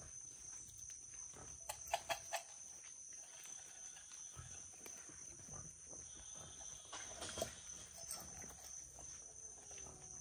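A steady high insect chorus, with scattered rustling and knocks from the goats, alpacas and emus crowding in to be hand-fed. A quick cluster of sharp clicks comes about two seconds in, and more knocks and shuffling come around seven seconds.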